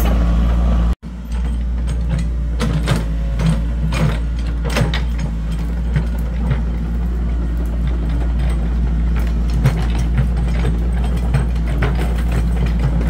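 Small tracked excavator's diesel engine running steadily, with an irregular series of metallic clanks and rattles from the machine as it moves. The sound drops out briefly about a second in.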